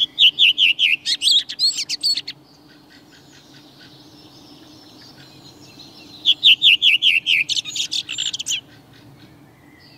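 Redwing singing twice, about six seconds apart, in the usual form of its song: a quick run of about six falling, trembling notes followed by a scratchy, squeaky twitter.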